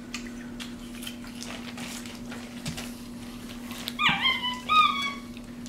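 Capuchin monkey giving two short, high-pitched chirps about four seconds in, each dropping in pitch and then levelling off, over a steady low hum.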